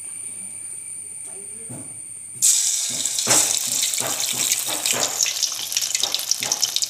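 A chicken drumstick in a spiced cornflour coating goes into hot oil in an aluminium pan, and loud deep-fry sizzling with crackling starts suddenly about two and a half seconds in and keeps going.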